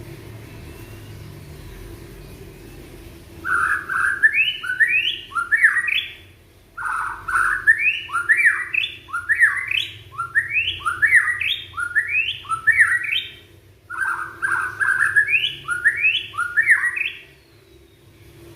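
Young white-rumped shama (murai batu) singing in three loud phrases of quick, repeated upward-sweeping whistles, with short pauses between the phrases.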